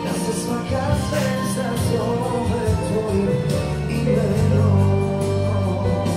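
A young boy singing into a handheld microphone over instrumental accompaniment.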